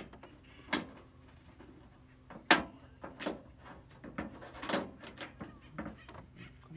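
A handful of irregular sharp plastic clicks and knocks as a plastic foot is pressed and worked with a hand tool into the plastic underside of a Coleman camp stove. The loudest knock comes about two and a half seconds in.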